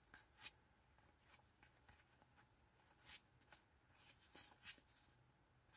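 Faint, irregular flicks and slides of Pokémon trading cards being passed one by one from hand to hand as a pack is counted.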